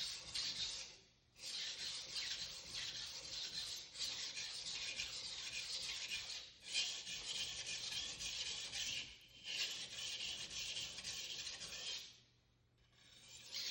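Steel blade of a Global G3 carving knife being ground back and forth on a wet 400-grit Naniwa waterstone: a steady gritty scraping with a few brief pauses and a longer one near the end. This is the second side of the bevel being set, grinding until a burr is raised.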